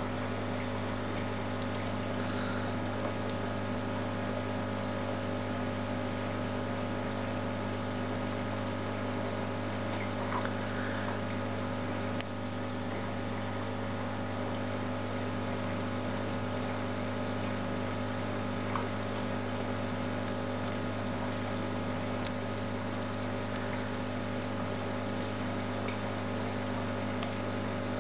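Steady electric hum of an aquarium pump running, with a faint wash of moving water and a few faint ticks now and then.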